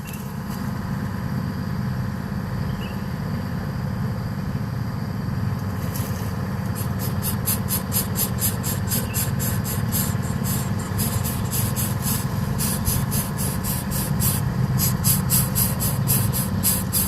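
A steady low mechanical hum, with insects chirping in quick high-pitched pulses, about four a second, joining about six seconds in and carrying on.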